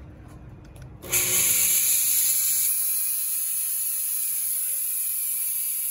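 Chauvet DJ Geyser P7 fog machine firing a burst of fog straight up: a loud, steady, high hiss that starts abruptly about a second in.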